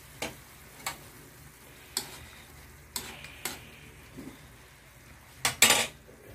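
Vegetables sizzling in a wok while a cooking utensil stirs them, knocking and scraping against the metal pan a few times, loudest in a quick clatter near the end.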